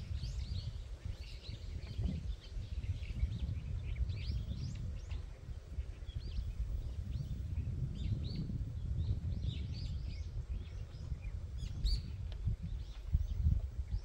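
Small birds chirping and twittering, many short calls scattered throughout, over a low, uneven rumbling noise.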